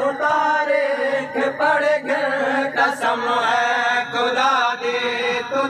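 Men's voices chanting a noha, a Shia mourning lament, in a steady sung recitation without instruments.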